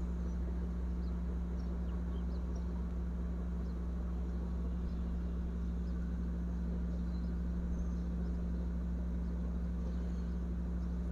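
A steady low hum with a constant background hiss, unchanged in level throughout. A few faint, light ticks sit on top of it.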